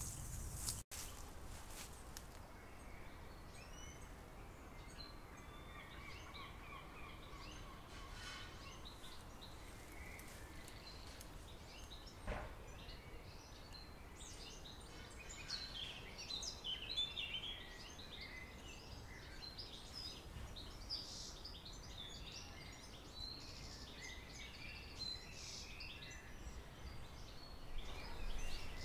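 Small birds chirping and singing in short phrases, busiest in the second half, over a faint steady outdoor background noise. A single knock comes about twelve seconds in.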